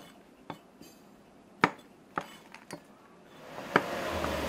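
Cleaver knocking on a wooden chopping board: a handful of separate sharp knocks, unevenly spaced, with the room noise rising near the end.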